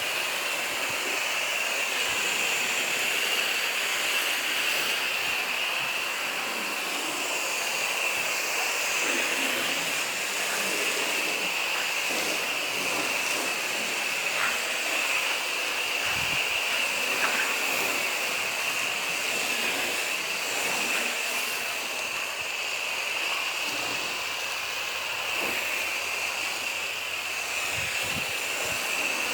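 Torq Foam Blaster 6 garden-hose foam gun spraying soap foam onto a car: a steady hiss of water and foam jetting from the nozzle, with no pauses.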